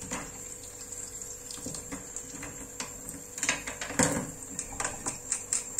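Knife working inside a gutted fish on a board, cutting out the swim bladder. Scattered small clicks and wet scrapes, with a couple of louder knocks past the middle.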